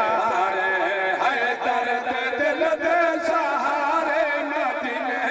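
A man chanting a naat, an unaccompanied Islamic devotional poem, into a microphone in a long, wavering melodic voice.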